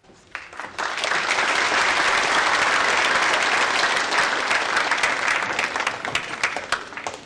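Audience applauding: the clapping swells within the first second, holds steady, then thins to scattered claps near the end.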